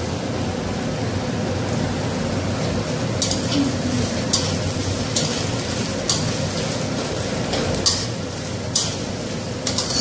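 Chopped onions sizzling in hot oil in a steel kadai. From about three seconds in, a metal spatula scrapes against the pan roughly once a second as they are stirred.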